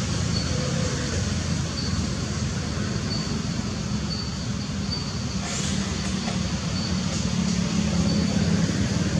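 Steady low rumble and hiss of background noise, like distant road traffic, with faint short high chirps recurring about once a second.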